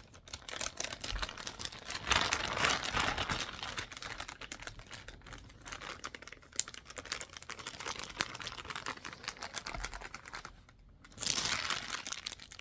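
Plastic packaging crinkling and rustling as items are handled and unwrapped, stopping briefly near the end.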